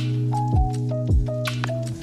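Background music with a steady beat: a thudding drum hit about every 0.6 seconds under held notes and a short melody.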